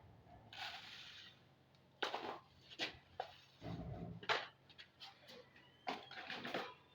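Scattered knocks, clatter and rustling from handling bird feed at the cages, with a short hiss about half a second in.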